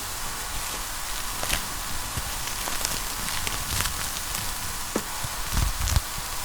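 Wood fire crackling in a fireplace: a steady hiss broken by scattered sharp pops, with a few low thumps near the end.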